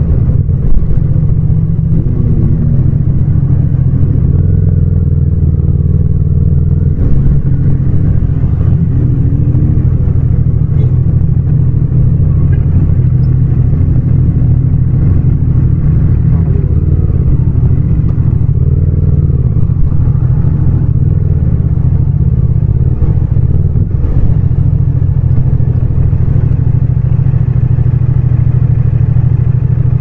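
Yamaha MT-07 (FZ-07) 689 cc parallel-twin engine running loud and close as the motorcycle is ridden, its pitch easing up and down with gentle throttle changes, with no wind noise.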